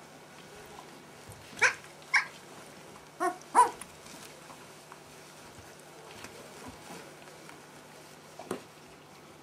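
Two-week-old Siberian husky puppies giving short, high squeals: four in the first four seconds and one more near the end.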